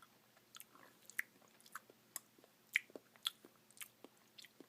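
Faint, irregular mouth clicks and crunches of someone chewing a mouthful of a Dairy Queen Blizzard with chocolate chunks.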